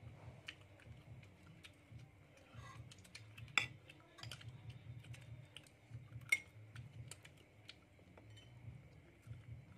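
Spoons and other tableware clinking and scraping against ceramic plates and bowls during a meal: scattered light clicks, with two sharper clinks about three and a half and six seconds in.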